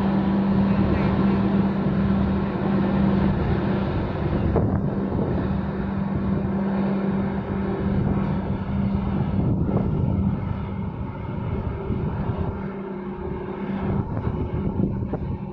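A large container ship passing close, its engines and funnel giving a steady low hum over a constant rushing noise.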